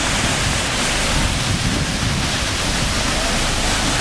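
Waterfall pouring onto rocks into a pool close by: a steady, loud rush of water.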